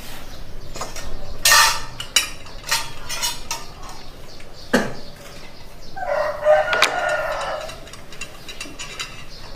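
A rooster crowing once, about six seconds in, lasting over a second. Scattered sharp clicks and knocks come before it.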